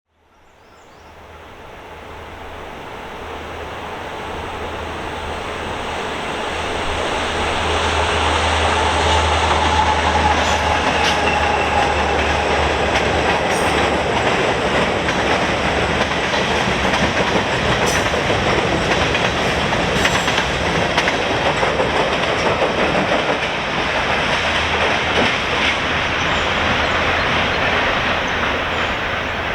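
A train running on the rails, fading in over the first several seconds into a steady rushing clatter with occasional clicks. A low hum underneath drops away about halfway through.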